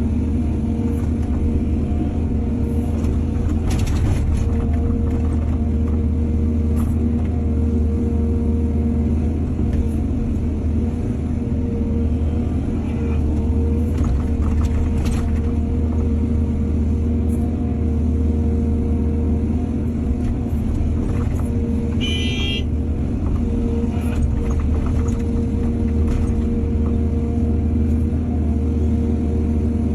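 Excavator's diesel engine running steadily under work, with scattered knocks and clanks and one brief high squeal about two-thirds of the way through.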